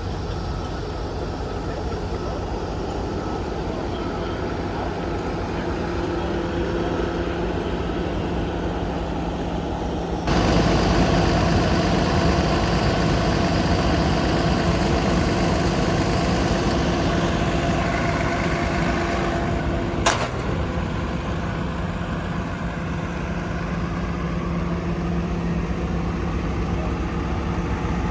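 Komatsu PC290LC-11 excavator's diesel engine running steadily. About ten seconds in it steps up suddenly to a louder, higher-pitched running, with a steady whine over it. About twenty seconds in there is one sharp knock, and the machine then settles back to a lower, even running.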